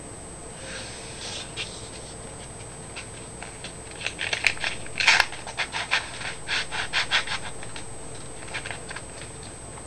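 A sheet of printer paper being rolled up by hand from its edge into a tube: a run of short crinkling rustles starting about four seconds in, loudest around five seconds, with a few more near the end.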